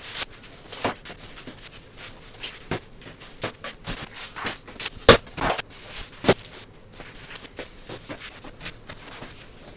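Plastic-wrapped diaper packs and cardboard diaper boxes being handled and set down: rustling with scattered knocks, the loudest about five seconds in and again just after six seconds.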